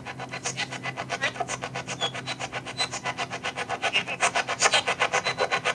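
Ghost-hunting spirit box sweeping through radio frequencies. It gives a fast, even chopping of static and station fragments, about eight bursts a second.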